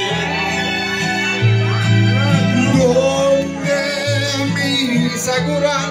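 Karaoke backing track of a Spanish-language ballad playing loudly through the bar's speakers, an instrumental stretch between sung lines with a bass line stepping between held notes.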